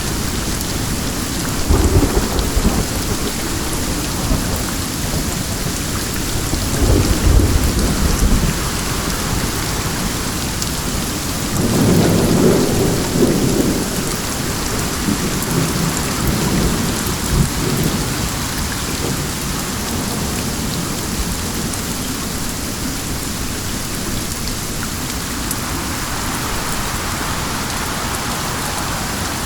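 Steady rain falling in a continuous hiss. A few low rumbles swell up during the first half, the longest about twelve seconds in.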